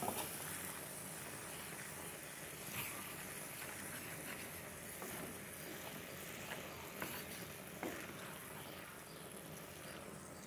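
Diced prickly pear cactus pads (palma) frying in lard in a metal pan: a faint, steady sizzle, with a few light scrapes and taps of a wooden spoon stirring them.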